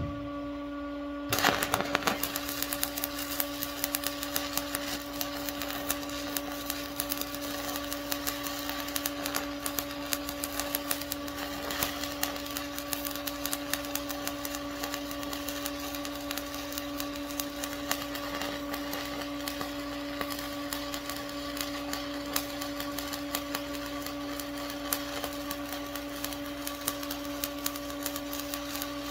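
Stick (shielded metal arc) welding: the arc strikes about a second in and crackles and sputters steadily as the electrode fills a burned-through hole in a thin cast part, backed by a carbon rod, over a steady electrical hum.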